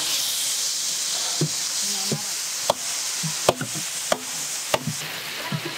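Elephant foot yam paste sizzling in hot oil as it is tipped into a large metal pan of fried onions and spices, with a steady hiss. Metal spatulas scrape and clank against the pan several times in the second half.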